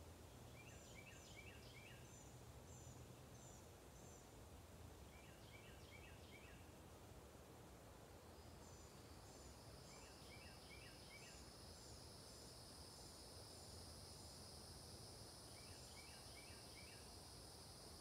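Faint woodland birdsong: a bird repeats a short phrase of quick chirps about every five seconds, with scattered higher chirps in between. An insect's steady high buzz comes in about halfway through.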